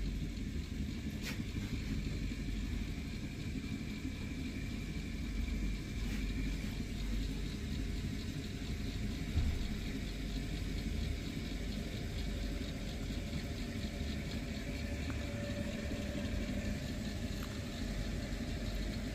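Baxi Roca gas boiler running with its burner lit, a steady low rumble with a faint whine over it, as it heats its hot-water store toward its 60 °C cut-off.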